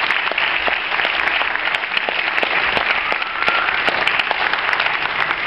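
An audience applauding steadily, with some individual claps sounding sharp and close by.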